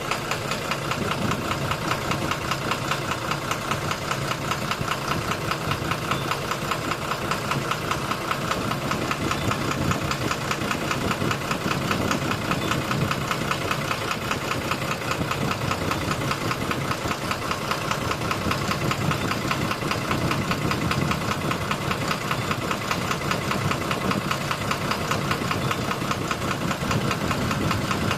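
12-M FE engine running steadily at idle with a fast, even knocking in time with the engine.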